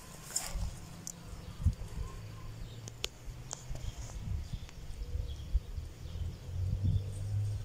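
Outdoor ambience: a low, uneven rumble of wind on the microphone, swelling near the end, with a few sharp light clicks about three seconds in and faint chirps.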